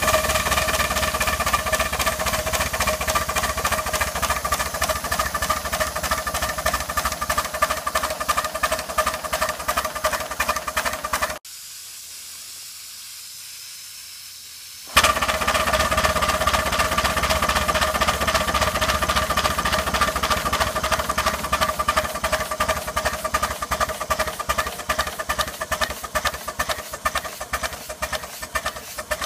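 Live-steam 4-6-0 model locomotive running on compressed air with its wheels spinning free on blocks: rapid, regular exhaust beats of air from the cylinders, with a steady tone underneath, the even beat of correctly set valves. About eleven seconds in the beats give way to a faint hiss for some three seconds, then resume at full speed.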